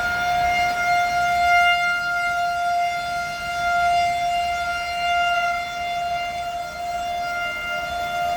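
Outdoor storm warning siren sounding one steady, held tone that swells and fades in loudness, over low wind rumble.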